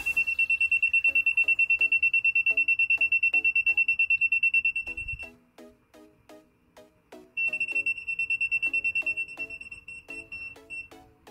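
Aneng ST213 clamp meter's non-contact voltage (NCV) alarm beeping, a rapid high-pitched beep about nine times a second, which signals a live wire near the clamp. It stops about five seconds in as the meter is moved away, and starts again about two seconds later until near the end.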